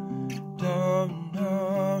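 Acoustic guitar strummed in steady chords, with a wordless vocal melody wavering above it, starting about half a second in.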